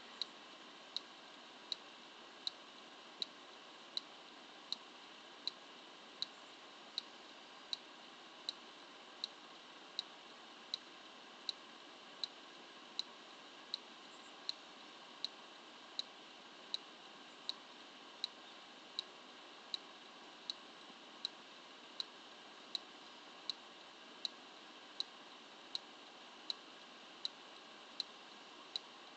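Scooter's turn-signal flasher ticking steadily, about four sharp ticks every three seconds, over a faint hiss.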